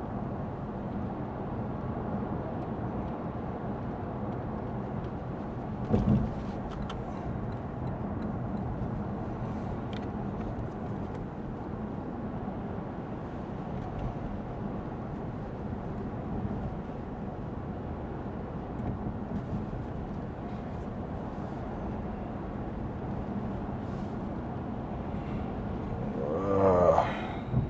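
Inside the cabin of a Lexus ES 350 sedan on the move: a steady hiss of tyres on a rain-wet road over a low engine hum. There is a single short thump about six seconds in, and a brief wavering pitched sound near the end.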